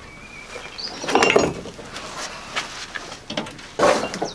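Scraping, rustling and clunks of junk being dragged and shifted in the rear load bed of an old Land Rover, with birds chirping faintly in the first second.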